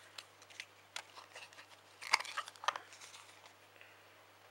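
Plastic wrappers and a paper-backed sheet of plasters rustling and crinkling as they are handled in a plastic box, with scattered light clicks, the sharpest about two seconds in.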